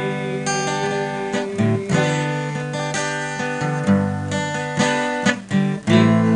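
Instrumental passage of a gospel song: strummed acoustic guitar with sustained accompaniment, between sung lines.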